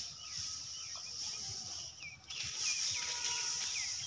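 Outdoor birds chirping, several short curved calls in the second half, over a steady high-pitched insect drone.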